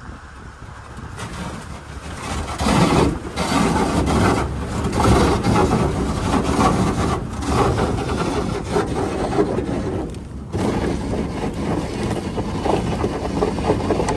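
Boat engine running under way, with wind and water noise on the microphone. It grows louder about two and a half seconds in.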